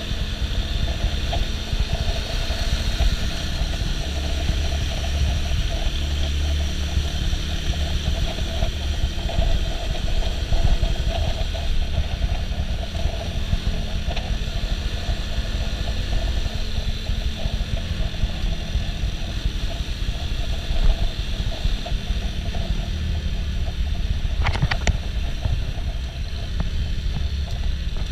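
Suzuki Shooter FV110 moped's 110 cc single-cylinder four-stroke engine running steadily at low riding speed, under constant wind and road rumble. A couple of short sharp clicks come near the end.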